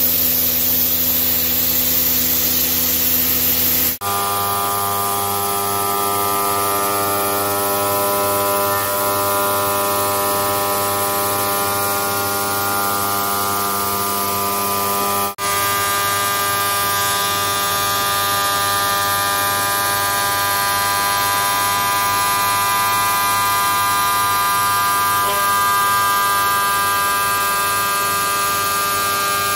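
Vertical CNC turning lathe running with a steady mechanical hum and whine of several fixed tones. The pitch mix changes abruptly twice, about 4 and 15 seconds in.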